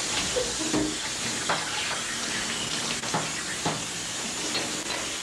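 Water running steadily from a tap into a bathtub, with a few short clicks through it.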